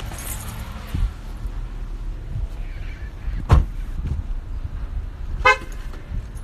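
Steady low rumble of a car cabin on the move. A knock sounds about halfway through, and a brief toot comes near the end.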